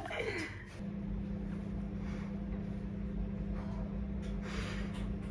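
A steady low mechanical hum, a single constant tone over a low rumble, that starts about a second in and holds unchanged.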